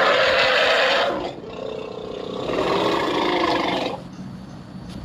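Dinosaur roar sound effect: two loud, rough roars, the first about a second long, the second longer and swelling before it dies away near the end.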